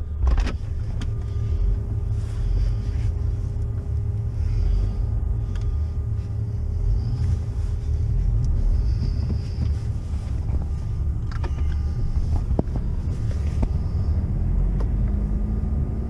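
Car driving on a snow-covered road, heard from inside the cabin: a steady low rumble of engine and tyres, with a few brief knocks around the middle.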